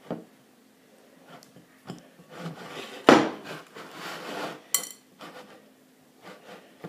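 Hands kneading a stiff damper dough in a glass mixing bowl. Dull knocks of hands and dough against the glass, with a rubbing, squashing stretch in the middle, the loudest knock within it, and a short ringing clink of the glass bowl about two-thirds in.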